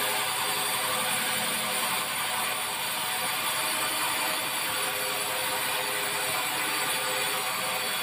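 Sawmill band saw running with a steady mechanical drone and faint steady hum.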